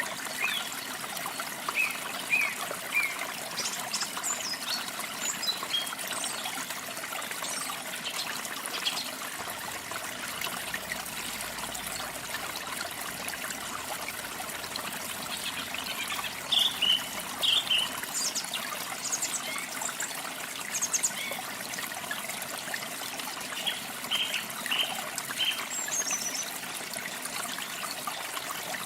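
Water trickling steadily, like a small stream, with songbirds chirping in short, scattered notes throughout.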